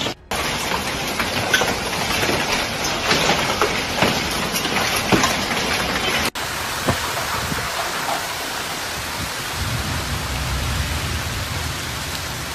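Heavy rain and hail pelting hard surfaces, a steady downpour hiss dotted with many sharp hailstone impacts. After a cut about six seconds in, the downpour continues with fewer hits, and a low rumble comes in near the end.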